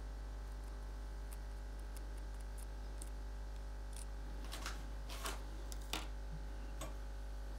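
Steady low electrical hum under a few short clicks and scrapes as pieces of lava rock and a glue tube are handled. About four of these come in the second half, the loudest a little past the middle.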